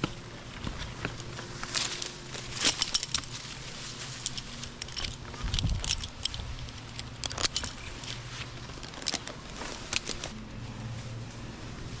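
Irregular clicks, knocks and jangles of climbing and rigging hardware being handled up in the tree, over a low steady hum.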